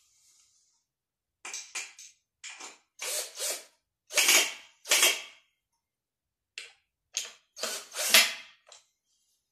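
Handling noises: a run of about ten short scraping and rustling sounds, loudest near the middle and again near the end, as things are picked up and moved about with no power tool running.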